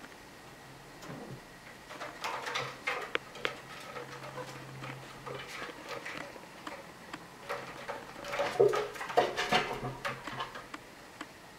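Cat's claws scratching and pawing at a sisal-rope scratching post: two bouts of quick, rasping strokes, the second one louder.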